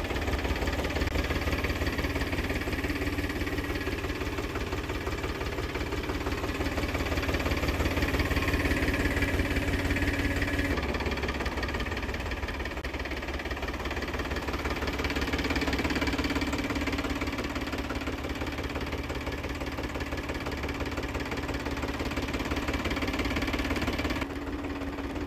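Powertrac Euro 47 tractor's three-cylinder diesel engine idling steadily.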